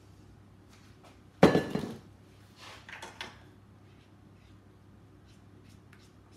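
A loud metal clunk about one and a half seconds in as the stainless steel stand-mixer bowl is handled after the cake batter is scraped out of it. Softer scrapes and light clicks follow as batter is cleaned off a spatula over the baking tin.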